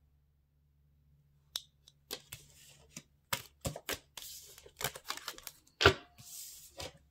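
Tarot cards being picked up and slid together off a wooden tabletop: a run of light clicks, taps and papery swishes that starts about a second and a half in.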